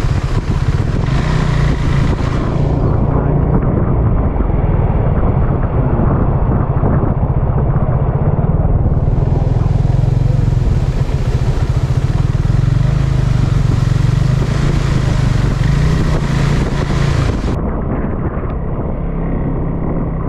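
KTM 390 Adventure's single-cylinder engine running steadily under way, with road and wind noise.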